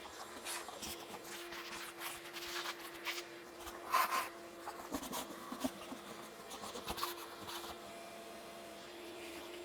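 A steady hum under scattered light clicks, knocks and rubbing sounds, with a louder scrape about four seconds in.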